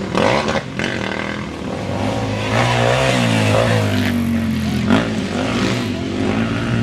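Off-road motorcycle engine revving as the bike rides the course, its pitch rising and falling with the throttle through the middle, with a short sharp knock about five seconds in.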